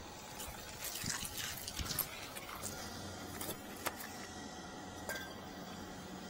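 Water running and splashing, with scattered sharp clicks and clinks throughout.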